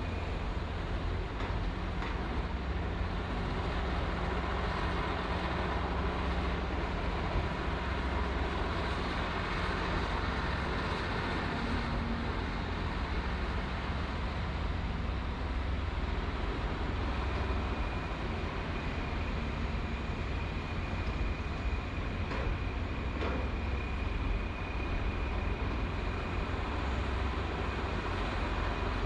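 Heavy construction machinery running: a steady low engine rumble, joined a little over halfway through by a thin, steady high whine, with a couple of faint knocks near the end.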